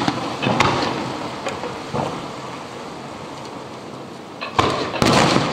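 Aerial firework shells bursting: a boom dying away at the start, smaller bangs about half a second and two seconds in, then two loud booms close together near the end, each trailing off in a rumbling echo.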